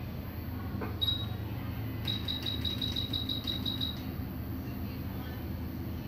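Electronic beeps from a soldering rework station: one short high beep, then about a second later a quick, even run of about a dozen identical beeps, some six a second, over a steady low hum.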